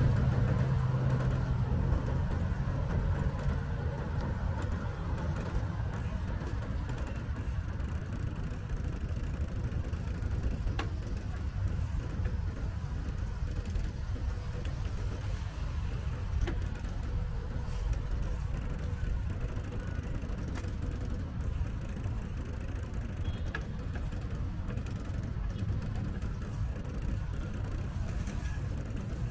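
Steady low rumble of road traffic and wind on the microphone of a moving bicycle.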